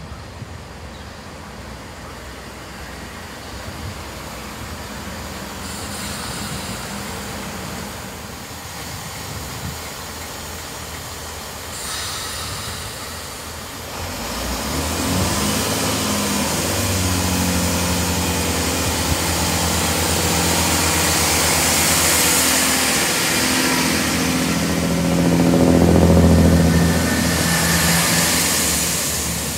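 Diesel passenger trains at a station platform: a fairly quiet approach for the first half, then, about halfway in, a train passes close by, its underfloor engines giving a steady low drone under loud rushing wheel and rail noise that swells to its loudest late on.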